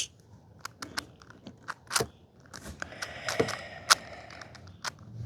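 A 6x6 Rubik's cube being turned by hand: irregular sharp clicks and clacks of the plastic layers snapping into place, with a short stretch of scraping about halfway through.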